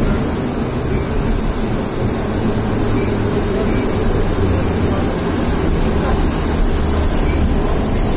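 Rail vehicle running with a steady rumble.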